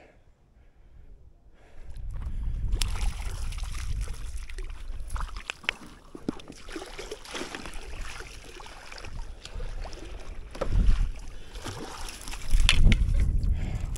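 Water sloshing around a small fishing boat, with wind buffeting the microphone and scattered knocks and clicks from handling. After a near-quiet first second and a half, it comes in gusts, loudest near the end.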